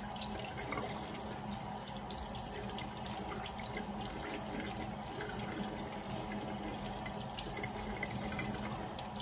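Bathroom sink faucet running steadily, water splashing over an epoxy-coated tumbler that is turned and rubbed by hand under the stream to rinse off wet-sanding residue.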